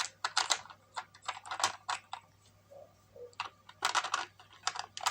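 Plastic LEGO pieces and a minifigure being handled: irregular small clicks and taps in quick clusters, with a short pause about halfway through.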